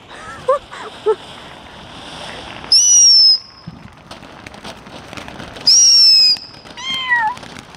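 Ground fountain firework spraying sparks with a steady hiss. It lets out two short, loud, high-pitched whistles, each under a second and falling slightly in pitch, about three and six seconds in.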